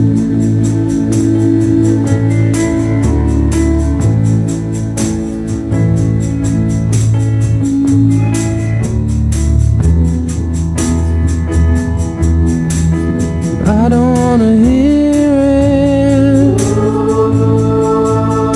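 Pop song with a steady drum beat, bass and held chords. A sung vocal line comes in about three-quarters of the way through, sliding up into long held notes.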